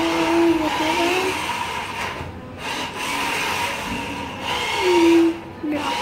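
Small electric motor of a battery-powered remote-control toy car whirring in spurts as it is driven about, its pitch rising and falling, dropping away briefly twice.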